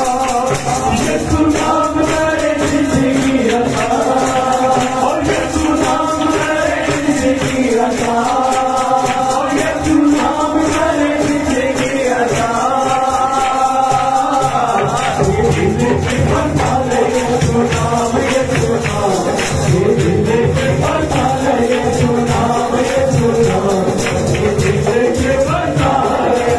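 Several men singing a Hindi Christian worship song together into microphones, over a steady percussion rhythm.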